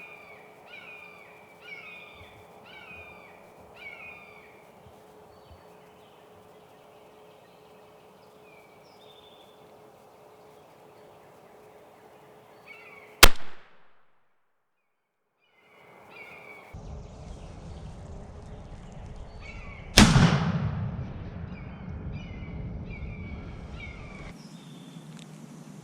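A run of repeated bird calls, evenly spaced and falling off after a few seconds, then a loud shotgun blast about 13 s in, and after a brief dropout a second loud blast about 20 s in that echoes for about a second.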